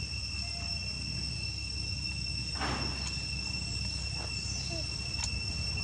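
Steady, high-pitched insect trill over a low rumble, with a short rustle about two and a half seconds in.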